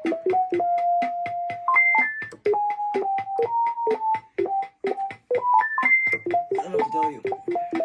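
Electronic keyboard playing a simple one-note-at-a-time melody of held notes over a steady built-in beat of about four ticks a second.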